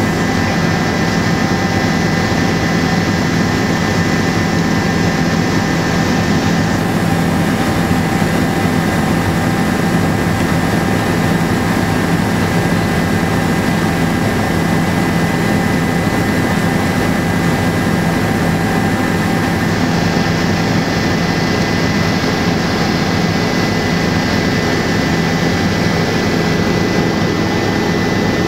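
Helicopter in flight: a steady drone of turbine engine and rotor with a constant high whine above it, unchanging throughout.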